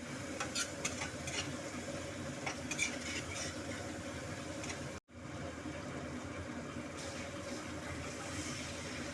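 Food frying in oil in a pan, stirred with a spatula that clicks and scrapes against the pan in the first few seconds, over a steady hum.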